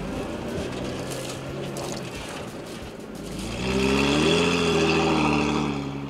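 Toyota Chinook 4x4 camper's four-cylinder engine pulling through deep sand. It runs steadily at first, then revs up about three and a half seconds in as the truck climbs a sandy rise, and eases off near the end.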